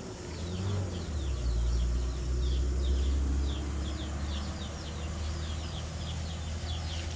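Logging truck passing: a deep engine rumble that swells about a second in and slowly eases off, with short high chirps repeating over it.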